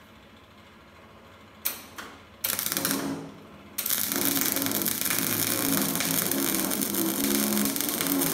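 Wire-feed (MIG/MAG) welding arc burning gasless flux-cored wire without shielding gas. It starts in two short spurts a little under two and about two and a half seconds in, then runs steadily from about four seconds on.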